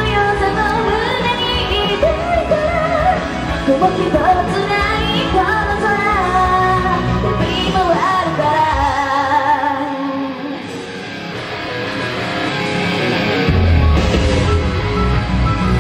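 A female solo idol sings live over a pop-rock accompaniment. Her vocal line ends about nine seconds in and the music thins with the bass dropped out. The full band comes back in near the end, leading into a guitar-driven instrumental break.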